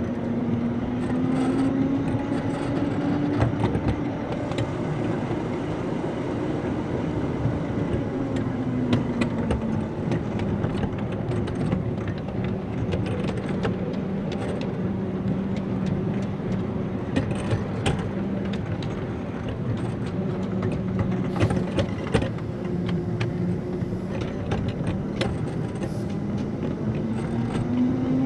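Miniature garden-railway locomotive running along its track: its drive hums steadily, dropping in pitch about a third of the way in and rising again near the end. The wheels click over rail joints and points, in a thicker run of clicks in the second half.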